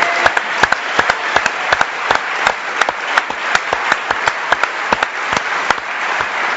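Large audience applauding, many hands clapping in a dense patter that thins a little near the end.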